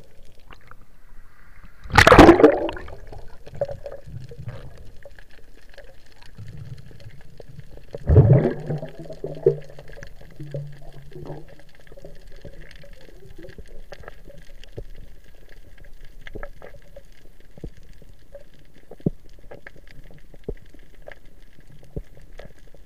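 Underwater sound picked up by a spearfisher's camera: two short, loud rushes of water, about two seconds in and again about eight seconds in, with scattered faint clicks and ticks in between.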